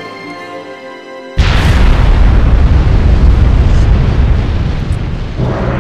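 Music, then about a second and a half in a sudden loud explosion effect with a deep rumble that lasts about four seconds before the music comes back.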